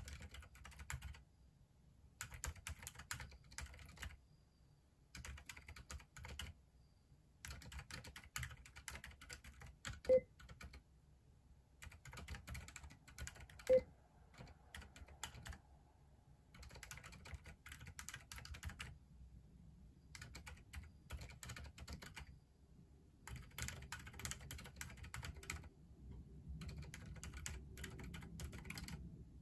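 Typing on a Keychron Q3 Pro mechanical keyboard fitted with silent brown switches: quiet, soft keystrokes in bursts of a few seconds with short pauses between them. Two sharper, louder clicks stand out about a third and about half way through.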